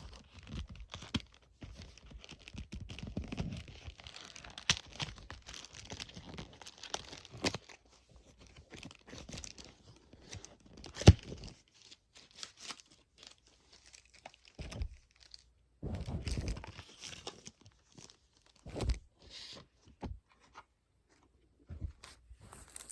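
Uno card-game box and its card packs being handled and opened: uneven rustling and crinkling of packaging, with scattered light clicks and one sharp knock about eleven seconds in.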